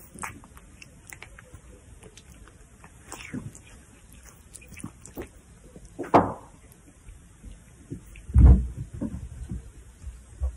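Close handling noise as a cat moves about on a person's head: scattered soft knocks and rustles, with a heavy low thump about eight and a half seconds in.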